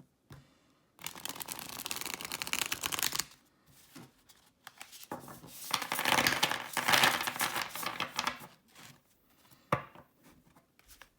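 A large tarot deck shuffled by hand: two spells of rapid card flutter, a couple of seconds and about three seconds long, with a few single taps of cards between them and near the end. The cards slide freely, shuffling well on smooth cardstock.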